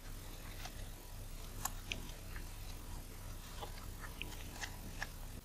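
Faint, irregular small clicks and ticks of a precision screwdriver turning out the tiny screws that hold the front element of a Nikon Nikkor 24-85mm VR lens, over a low steady hum.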